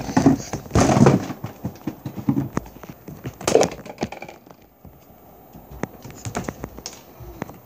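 Handling noise from a camera being moved about close to a wooden floor: scattered knocks, taps and rustles, loudest about one second in and again about three and a half seconds in.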